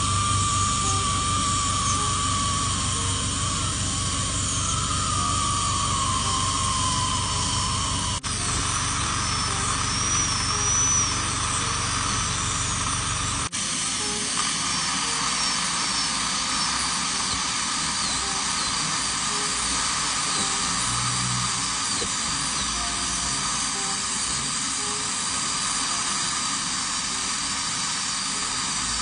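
High-speed dental handpiece (air-turbine drill) whining steadily as its bur cuts decay out of a lower molar. The sound changes abruptly twice, about eight and thirteen seconds in.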